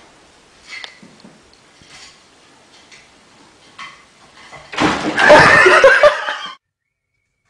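A sudden clatter, then people laughing loudly for about a second and a half before the sound cuts off abruptly. Faint small knocks and room sound come before it.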